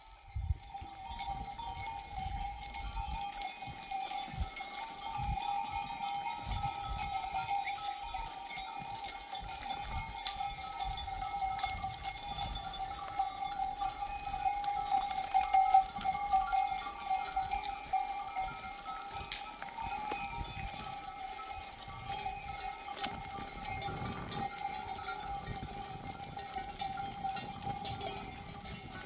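Bells on a flock of sheep jangling continuously, several metallic tones ringing together.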